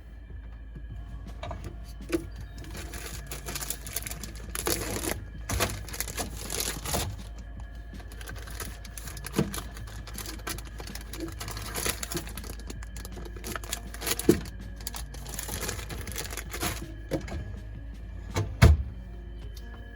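Background music with a steady, low bed of tones, overlaid by a run of scattered clicks, knocks and clatter, loudest in a sharp knock near the end.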